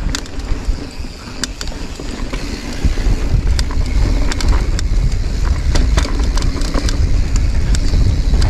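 Giant Reign full-suspension mountain bike rattling down a rocky trail: tyres running over rock with frequent sharp clacks and rattles, under a heavy low wind rumble on the microphone.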